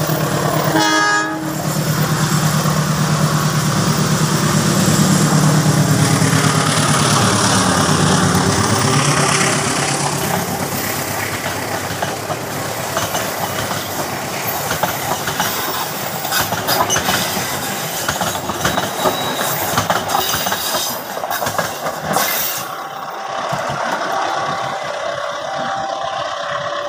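A CC201 diesel-electric locomotive hauling a passenger train past: a short horn blast about a second in, then the locomotive's engine running loud as it approaches and dropping in pitch as it goes by, followed by the coaches' wheels clacking over the rail joints as they pass and fade away.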